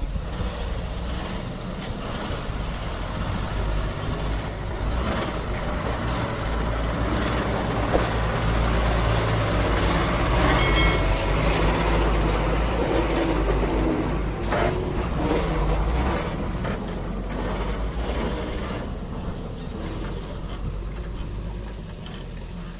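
Ashok Leyland tipper lorry's diesel engine running hard under load as the loaded truck climbs out of soft, rutted soil and pulls away, the rumble growing louder in the middle. A short high-pitched squeal rings out about ten seconds in.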